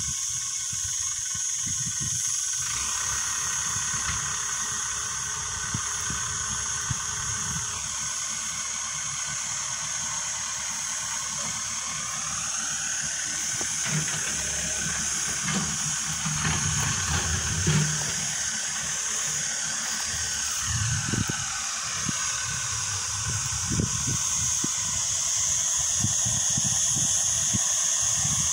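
Backhoe loader's engine running at the work site, with a whine that rises and falls in slow arcs, under a steady high hiss.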